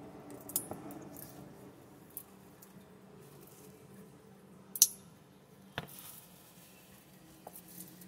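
Light metal clicks from handling a stiletto-style switchblade comb, then almost five seconds in a sharp, loud snap as the spring-loaded steel comb fires open and locks, with one more click about a second later.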